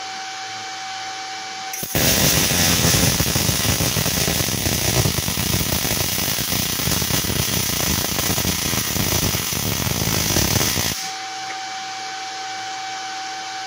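MIG welding arc, 0.9 mm wire at 130 A and 18.3 V on 3.3 mm steel plate with the inductance turned down a little, crackling loud and steady for about nine seconds. It strikes about two seconds in and cuts off suddenly about eleven seconds in, over a steady machine hum.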